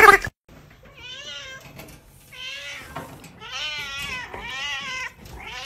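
A grey short-haired cat meowing repeatedly: about five drawn-out, wavering meows in a row. A brief loud noise cuts off in the first instant.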